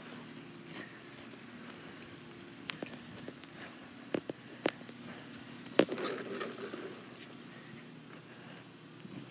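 A handful of scattered light clicks and taps, typical of a handheld phone being carried and handled while walking, over a faint steady hum.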